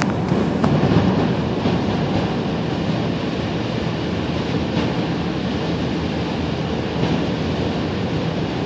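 Steady low rumble inside a car driving on an ice-covered highway: tyre and road noise mixed with a strong crosswind of about 30 miles an hour blowing against the car.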